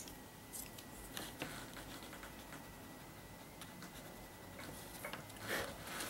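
Coloured pencil scratching on paper in short, irregular strokes as an eye is shaded in; faint.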